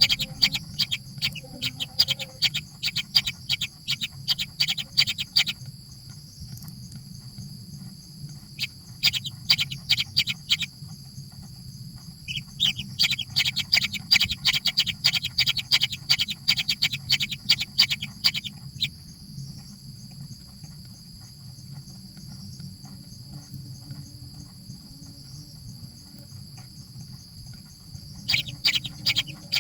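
Baby birds chirping in rapid runs of sharp, high-pitched calls, about five or six a second. There are three runs, broken by pauses and a long gap, and the chirping starts again near the end. A steady high whine runs underneath.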